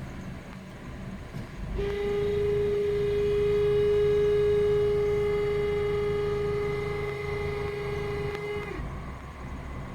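2006 Honda Accord idling, with a terrible noise: a loud, steady, horn-like tone that starts about two seconds in and cuts off, dipping slightly in pitch, about seven seconds later. It comes with the A/C switched on at idle, and the owner wonders whether it is the A/C compressor or a belt.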